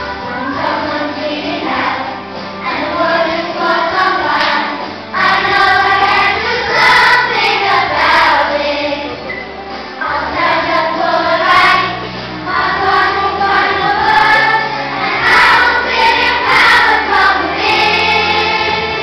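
A children's choir singing a song in phrases, the voices growing louder about five seconds in.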